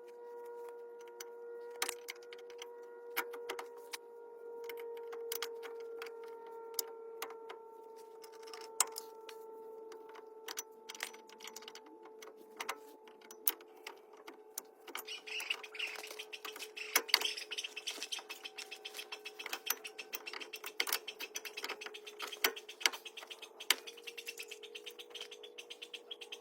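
Hand tools working on metal: scattered sharp clicks and knocks, then from about halfway a fast run of rapid ticking, over a steady hum.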